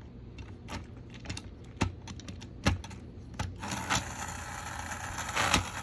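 Hard plastic clicks and taps as a toy Thomas engine and its cargo cars are set back onto plastic track. About three and a half seconds in, a small battery motor starts a steady whir, with more clicks over it.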